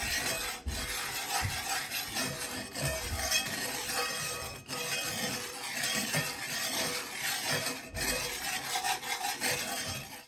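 Wire whisk stirring and scraping a dry mix of sugar, cocoa powder and flour around a cast-iron skillet, an irregular scratchy sound of the wires on the iron, working the lumps out of the dry ingredients.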